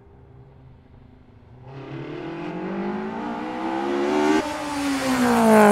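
Car engine revving up with rising pitch, starting about two seconds in from a faint low hum. The pitch drops suddenly about four and a half seconds in, then falls away steadily as the car goes by, loudest near the end.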